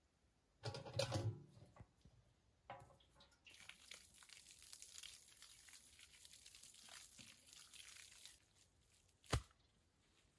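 Water poured from a metal pot onto loose soil, splashing steadily for about five seconds as the dirt is wetted. A clattering knock comes about a second in, and a single sharp knock near the end.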